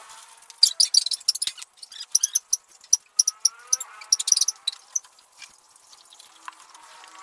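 Small wooden blocks clicking and clattering against each other and the tabletop as they are handled and set down, in two quick flurries of sharp clicks.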